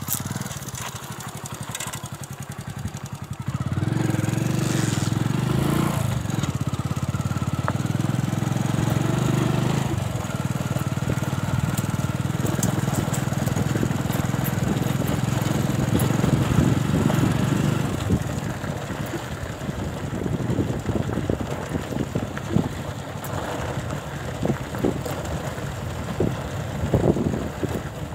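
Small motorcycle engine running steadily while riding, louder for a long stretch starting about four seconds in, then quieter with irregular knocks and rattles in the last part.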